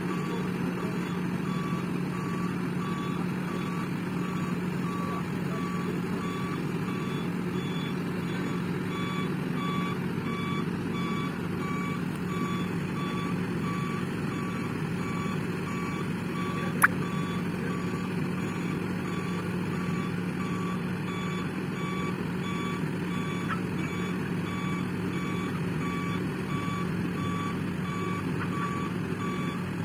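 Volvo crawler excavator's diesel engine running steadily under load while its warning alarm beeps over and over at an even pace, as it lifts and carries a portable site cabin on chains. About halfway through there is one sharp knock.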